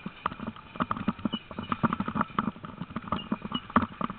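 Quick, irregular knocks and rattles, several a second, of a harnessed dog team and its musher moving along a grass track during dry-land sled-dog training. A few faint short high chirps come through.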